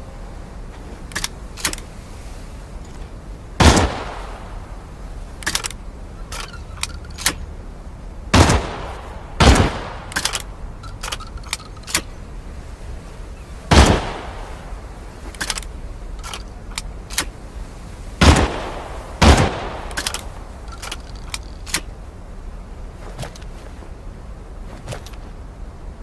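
Shotgun firing six loud blasts, each trailing off in an echo; two of them come as pairs about a second apart. Many shorter sharp clicks fall between the shots.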